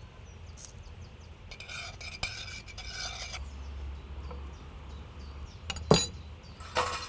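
A metal spoon scraping and stirring in a stainless steel saucepan, moving a garnish of salmon roe, wild cherries and leaves, with a sharp clink about six seconds in.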